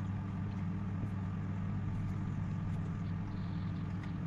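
Steady low machine hum with a few faint light clicks over it.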